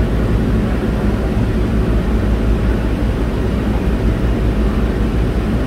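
Steady low rumble and hiss of a resort tram running, heard from inside the car.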